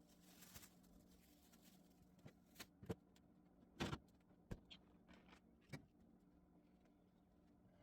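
Scattered light knocks and clunks of containers and shelves being handled during a fridge clean-out, the loudest about four seconds in, over a faint steady hum.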